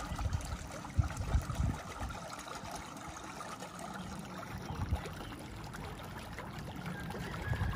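Outdoor ambience: a steady rushing hiss, with wind buffeting the microphone in low thumps a few times, most about a second in and again near the end.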